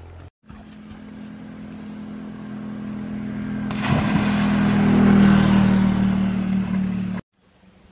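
A person jumps into a stream with a big splash about four seconds in, followed by churning water. Under it a steady motor engine drone grows louder throughout. The sound cuts off suddenly near the end.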